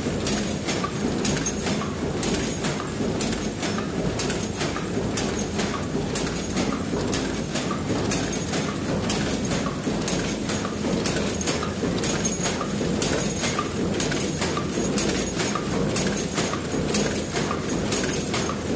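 Paper cup forming machine running at production speed, a steady mechanical hum with a regular rhythmic clacking as it turns out cups, about one a second.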